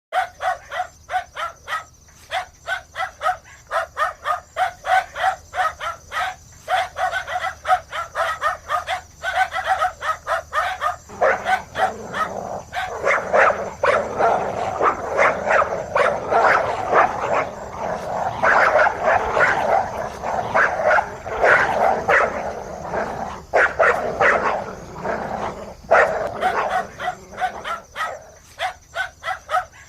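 Several dogs barking. It starts as a fast, even run of barks, several a second; about a third of the way in many dogs join and bark over one another, louder. Near the end it thins back to a quicker single run.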